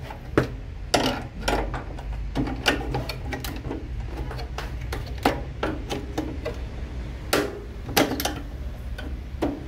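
Irregular clicks and knocks of a screwdriver and plastic parts as the door latch hooks and their spring are pried out of a microwave oven door, over a steady low hum.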